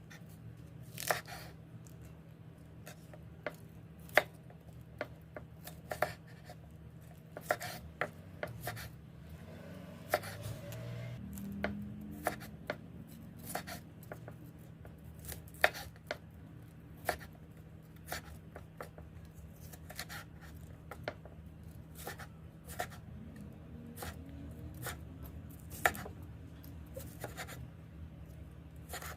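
Kitchen knife cutting food on a chopping board: irregular sharp knocks, roughly one or two a second, over a steady low hum.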